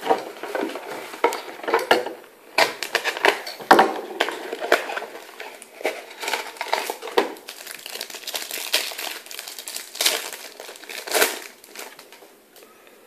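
Crinkling and crackling of a 2012 Panini Absolute football card pack being opened and its cards handled: many irregular sharp crackles.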